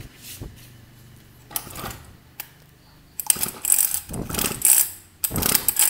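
Recoil starter of a used two-stroke brush cutter pulled to turn the engine over without starting it, as a compression check; two pulls in the second half, the first longer. The compression is judged good.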